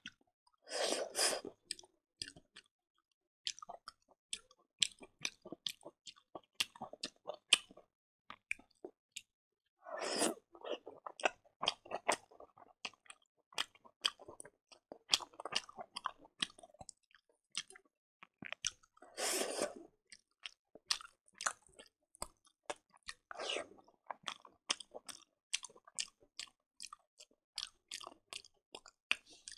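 Close-miked chewing of a mouthful of rice and pork, with many quick wet mouth clicks and lip smacks. There are a few longer, louder bursts: near the start, about a third of the way in, and twice about two-thirds of the way through.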